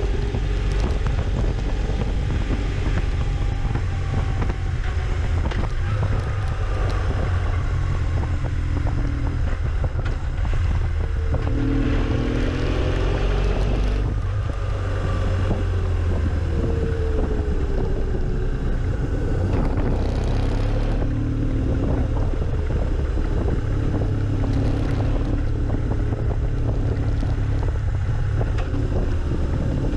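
Motorcycle engine running on the move, its revs rising and falling, under heavy wind noise on the camera microphone.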